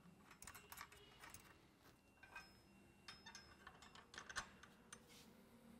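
Faint, irregular metallic clicks and taps of small hardware being handled: nuts and washers being fitted by hand onto the U-bolts that clamp a breakaway bracket to a sprayer boom. The sharpest click comes about four and a half seconds in.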